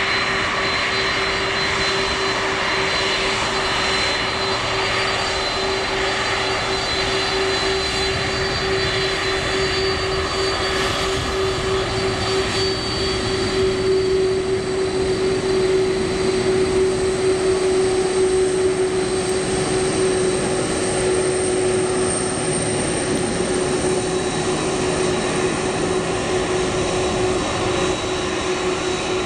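Boeing 767-400ER's General Electric CF6 turbofan engines at taxi power: a steady jet whine, a constant mid-pitched tone over a rushing roar, with high thin whistling tones on top. It grows somewhat louder about halfway through as the aircraft passes closest, then eases back.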